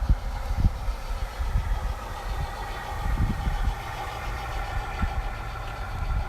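Battery-powered G-scale model locomotive's onboard sound system playing a steady engine drone, with wind buffeting the microphone in uneven low rumbles.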